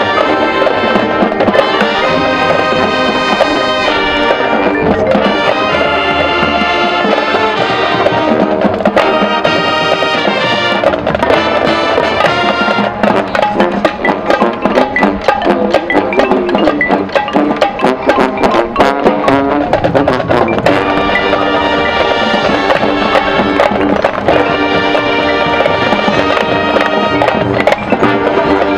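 Marching band playing: brass horns holding full chords over drums, with a busier, drum-led passage in the middle before the brass chords return.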